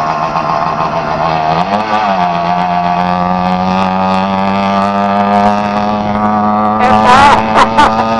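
80cc two-stroke bicycle engine with a bare straight-pipe exhaust running under way. Its note rises as the throttle opens about a second and a half in, then holds steady. A few brief loud noises break in near the end.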